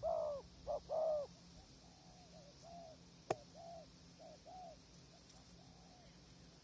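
Spotted doves cooing: two loud, rounded coos at the start, then a run of fainter coos. A single sharp click about halfway through.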